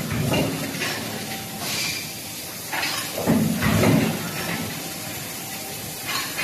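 Billet forging line running: the forging press cycles roughly every three and a half seconds with a heavy low rumble, and short bursts of hissing air come between its strokes.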